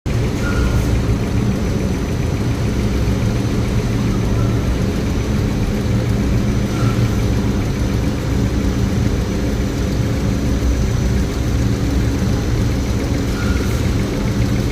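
Factory production-line machinery running at full load: a loud, steady low mechanical hum, with a faint short high squeak now and then.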